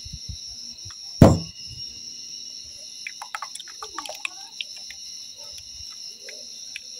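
Kitchen utensils being handled while a blended drink is strained: one sharp knock about a second in, then a run of light clicks and clinks.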